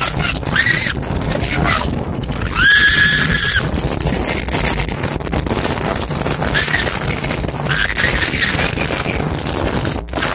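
Amusement ride car rattling and rumbling along at speed, with wind on the microphone and several high squeals over it. The longest and loudest squeal comes about three seconds in.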